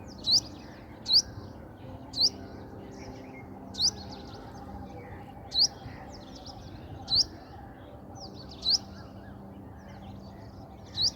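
Male purple sunbird calling: a short, sharp, rising note repeated about eight times at irregular intervals of one to two seconds, over a low steady background hum.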